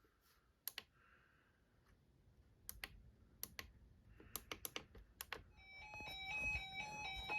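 Quiet, irregular clicks like typing on a computer keyboard, then about five and a half seconds in a faint simple electronic tune of stepped tones starts.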